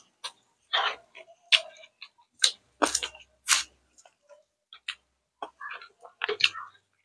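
Close-miked eating sounds from two people eating by hand: wet chewing, lip smacks and small crunches in irregular sharp clicks with short silent gaps between.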